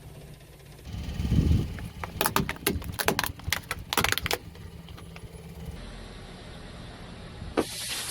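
A car tyre rolling over and crushing brittle objects: a low rumble, then a quick run of sharp cracks and snaps, followed by a steady low hum and another short crunch near the end.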